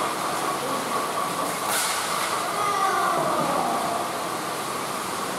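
Plarail battery-powered toy trains running on plastic track, a steady mechanical running noise of several small trains together, with one sharp click just under two seconds in.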